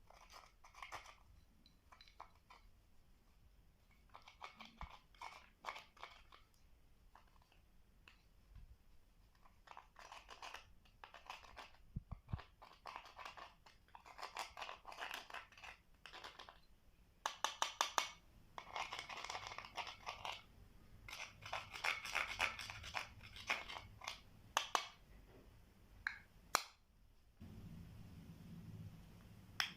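Slime being squished, stretched and stirred by hand, giving clusters of quick sticky clicks and crackles that grow denser and louder through the middle. Near the end the crackling stops and a low steady hum takes over.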